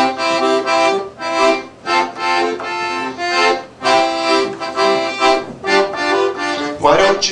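Piano accordion playing rhythmic chords in short, repeated phrases.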